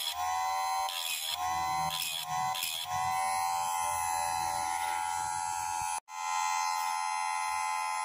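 Electric chain saw sharpener (Trend TL-5315) motor running with a steady whine. Its grinding wheel bites the chain teeth in three short grinds in the first three seconds, then it spins freely. The sound cuts out for an instant about six seconds in.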